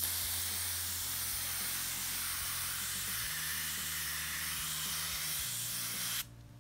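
Airbrush spraying a thin coat of acrylic paint: a steady hiss of air and paint mist that cuts off suddenly near the end.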